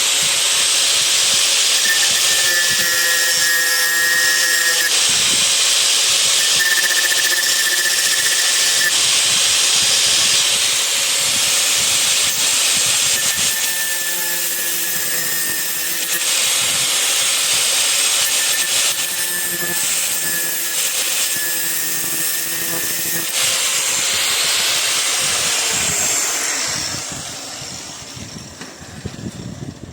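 Loud, steady hissing rush from a motor-driven machine, with a steady motor whine under it; near the end the whine drops in pitch and the sound winds down and stops.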